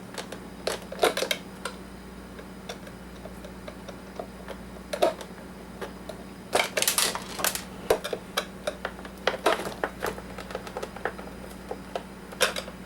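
Irregular light clicks and taps of a hand screwdriver working a screw out of a coffee maker's plastic housing, with a quick flurry of rattling clicks about halfway through.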